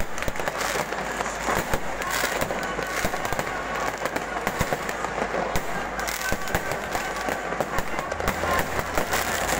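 Fireworks going off without a break: a dense run of sharp bangs and crackling pops.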